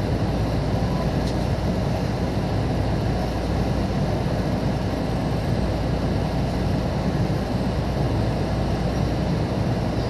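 Steady rumble and low hum inside a Shinkansen passenger car as the train runs slowly out along the station platform.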